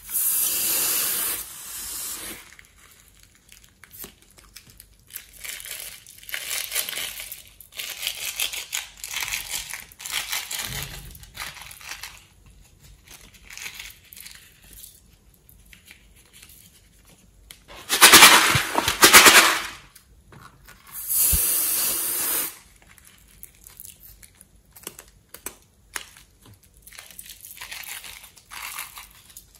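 Liquid slime ingredients squirting and sputtering out of the cut neck of a rubber balloon as it is squeezed into a glass bowl of glue. It comes in a series of crackly bursts, and the two loudest are about two-thirds of the way through.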